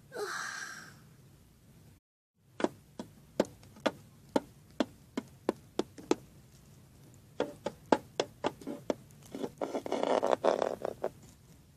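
A run of light, sharp taps, about two to three a second, like a plastic toy figure tapped along a hard surface to make footsteps. The tapping pauses briefly and starts again, then gives way to a short rustle near the end.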